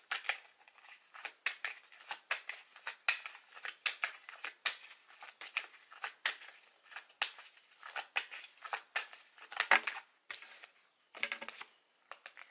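Tarot deck being shuffled by hand: an irregular run of quick, crisp card flicks and slaps, several a second, with a brief pause about ten seconds in.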